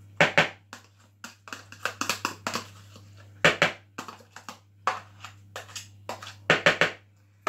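A plastic food tub knocked and tapped against a mixing bowl to shake roasted pumpkin out of it. The knocks come in an irregular string, with the loudest about a third of a second in, about three and a half seconds in and near the end.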